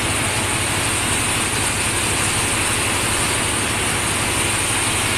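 Steady machinery din in a ship's engine room: an even low hum under a continuous hiss, with no single beat or event standing out.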